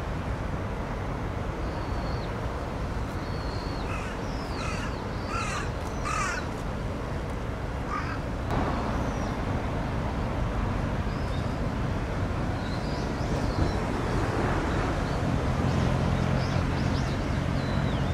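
Harsh bird calls, four or five in quick succession between about four and eight seconds in, with faint high whistled bird notes over a steady low rumble.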